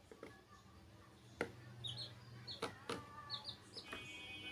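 Young chicks peeping: short, high cheeps, often in quick pairs, starting about two seconds in. A few sharp taps come before and among them.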